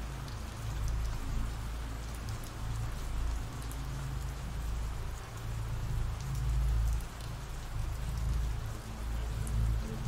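Steady rain ambience sound effect, rain falling on a surface, with a low rumble underneath that swells and fades gently.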